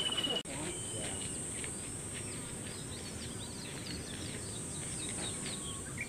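Outdoor ambience: a steady high insect drone with small birds chirping over it.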